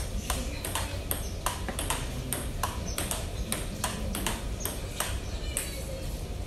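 Table tennis rally: the celluloid ball clicking off the paddles and bouncing on the table, about three to four sharp clicks a second in a steady rhythm, over a low rumble.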